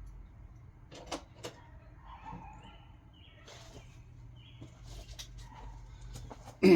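Hand work on an engine's timing chain tensioner: a couple of sharp metal clicks about a second in, scattered light taps, then one loud knock near the end.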